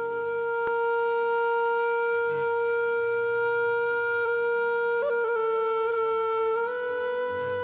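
Background music: a flute-like wind instrument holding one long note, which wavers about five seconds in and steps slightly higher near the end.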